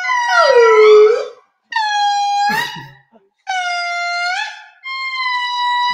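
Indri lemur song: four long held calls of about a second each, every one bending up or down in pitch at its end, with two voices overlapping in the first.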